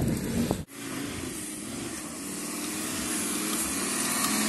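Volkswagen Touareg's engine working under load as the SUV climbs a steep dirt slope, its revs slowly rising and getting louder. The sound drops out for an instant less than a second in.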